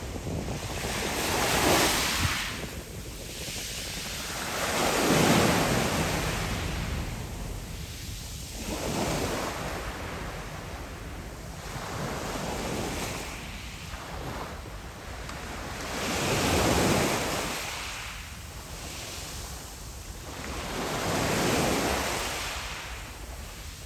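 Small sea waves breaking and washing up a fine pebble beach, the water hissing over the shingle. It comes in six swells, one about every four seconds, the loudest a few seconds in and about two-thirds of the way through.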